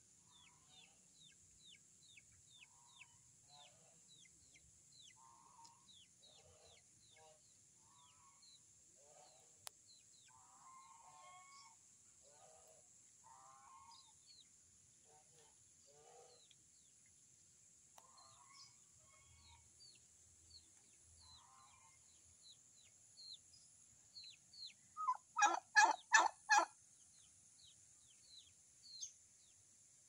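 White domestic turkey tom gobbling once near the end, a loud, quick rattling call. Before it come scattered soft clucks from the fowl, over a steady series of high, quickly repeated falling chirps.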